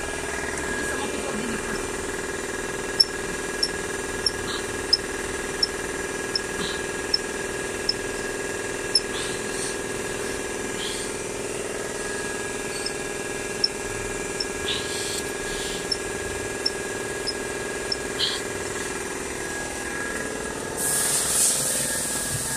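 Hand priming pump on a diesel fuel system being worked to bleed out an air lock, giving soft regular clicks about every 0.7 seconds, then more sparsely, over a steady mechanical hum. A burst of hiss comes near the end.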